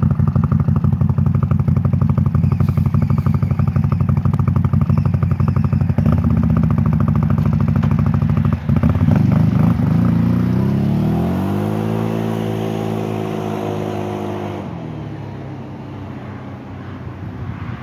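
2021 CFMoto CForce 800XC ATV's V-twin engine idling at the exhaust tip with a rapid pulsing beat. About ten seconds in it pulls away: the pitch rises smoothly and holds, then drops as the throttle eases, and the sound fades as the quad rides off.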